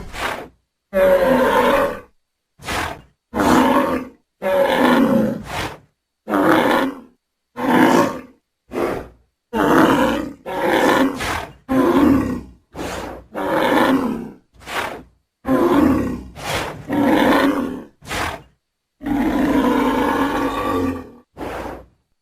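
Sound-designed Centrosaurus dinosaur calls: a string of about twenty short roars and growls of varying length, each separated by dead silence, with one longer roar near the end.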